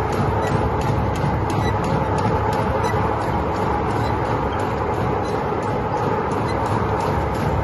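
Waste tyre recycling and rubber crumb milling machinery running steadily, with a constant mechanical din and a hum, and frequent irregular knocks and clatter over it.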